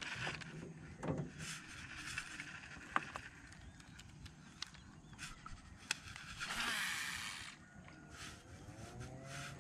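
Daiwa Laguna baitcasting reel being cranked on a lure retrieve: a steady mechanical whirr with small clicks. About two-thirds of the way in there is a louder rush lasting about a second.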